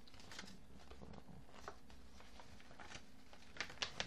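Faint rustling and handling noises of items and packaging being moved about, with three quick sharp clicks near the end.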